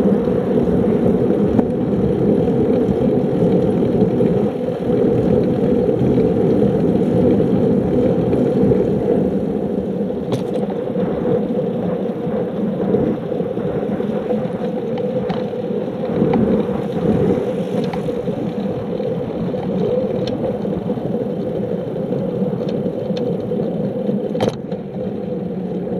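Steady rushing of wind over a handlebar-mounted camera, with tyre noise from a bicycle rolling along an asphalt path. A couple of faint clicks come through, one about halfway and one near the end.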